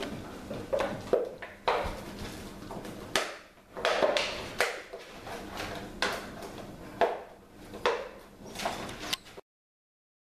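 Puppies scuffling and playing on a tile floor: a string of short clicks, clatters and scuffles that cuts off suddenly near the end.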